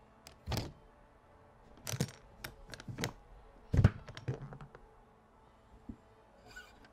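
Handling noise: about half a dozen irregular knocks and clicks, the loudest nearly four seconds in, with fainter ticks after it.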